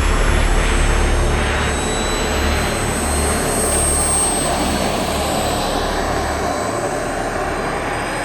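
Turbine of a 1/5-scale L-39 radio-controlled model jet running: a jet rush with a thin high whine, slowly fading.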